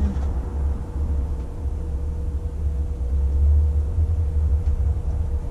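Steady low rumble with a constant mid-pitched hum running under it, like a machine running.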